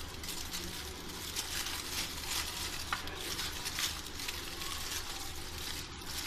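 Aluminium foil crinkling and rustling as it is unwrapped by hand from a foil-wrapped sandwich roll, a continuous irregular crackle. A faint steady low hum runs underneath.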